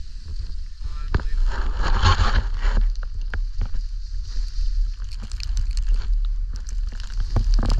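Skis running through deep powder snow, a rushing hiss that swells and fades with each turn, over a heavy wind rumble on the microphone. Scattered sharp clicks and knocks are heard throughout.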